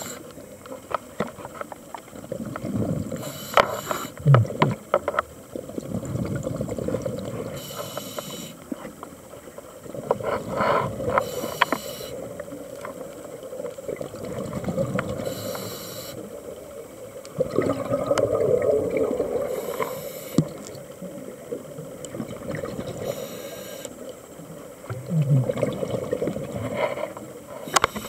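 Scuba diver breathing underwater through a regulator: short hissing bursts about every four seconds, with bubbles rumbling and gurgling between them.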